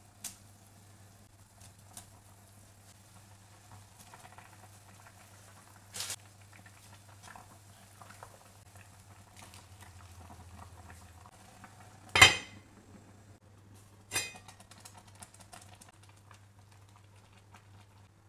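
Broth boiling in a pot, a faint steady bubbling over a low hum. Dishes and utensils clink and knock against the pot now and then, the loudest a sharp ringing clatter about twelve seconds in and a smaller one about two seconds later.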